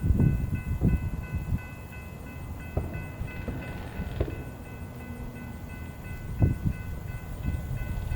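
Train passing, with wind buffeting the phone's microphone in uneven low gusts and a faint steady high-pitched tone throughout.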